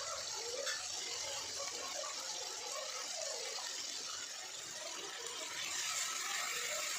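Sliced onions sizzling steadily in hot oil in a steel kadhai.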